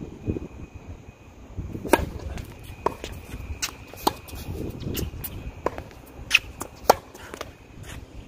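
Tennis rally on a hard court: sharp pops of racquets striking the ball and the ball bouncing, a string of separate hits spaced roughly half a second to a second apart, the loudest near the start and toward the end.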